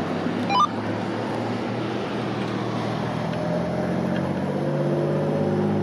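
Federal Signal 2001-DC rotating outdoor warning siren growling: the rotor turns at low speed, so it gives a low, steady rumbling tone instead of a full wail, and the pitch rises slightly after the middle. A brief chirp sounds about half a second in.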